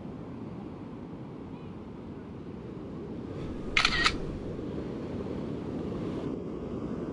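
Steady low rush of surf breaking on a sandy beach. About four seconds in comes a single camera shutter click, heard as two quick clicks close together and louder than the surf.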